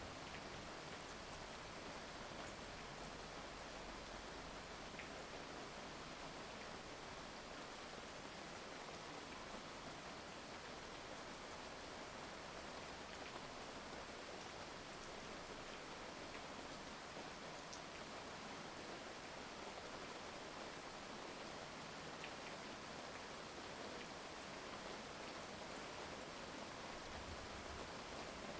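Steady rain falling, an even hiss with a few faint drop ticks here and there; no thunder.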